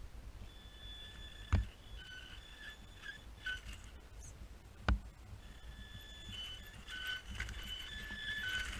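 Electric motor and gearbox of a scale RC rock crawler whining as it climbs, the pitch stepping up and down with the throttle in several stretches. Two sharp knocks, one about a second and a half in and one near the middle, stand out as the loudest sounds.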